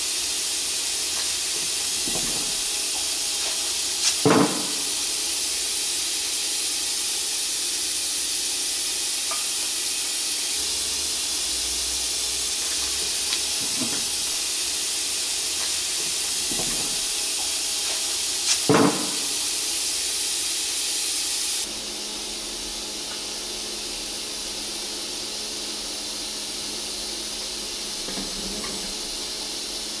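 Steady hiss of background noise, with a few short knocks while masking tape is worked onto the wheel rim. About two-thirds of the way through the hiss drops a little and a low steady hum comes in.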